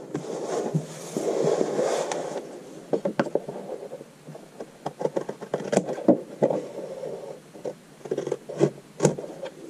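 Scissors snipping through craft paper, trimming its overhanging edge along a notebook cover in a run of short, irregular snips. Before that comes a rustling scrape as the paper-covered notebook is moved.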